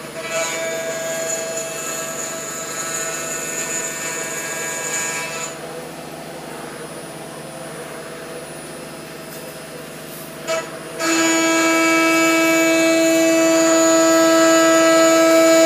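CNC router spindle milling a metal plate, the end mill cutting with a steady whine of several tones at once. The whine drops away about five seconds in, leaving a quieter hiss, and comes back louder about eleven seconds in.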